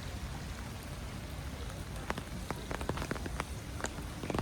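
Heavy rain falling steadily, a continuous hiss with many sharp individual drops pattering on hard surfaces close by.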